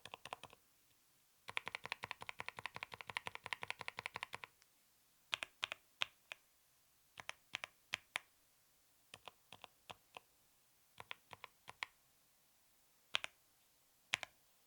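Mechanical keyboard being typed on as a sound test: a dense run of fast keystrokes, then scattered single presses and pairs of keys.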